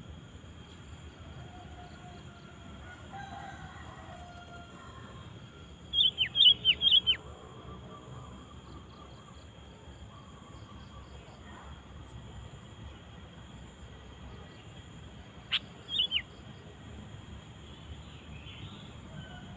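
Sooty-headed bulbul (kutilang) calling: a quick, loud run of about five sharp, falling notes about six seconds in, and a shorter call of two or three notes near sixteen seconds.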